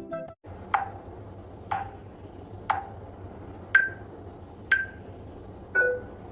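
Six short pings about a second apart, each a click with a brief ringing tone: the first three lower, the next two higher, the last lowest. A faint steady hum lies underneath.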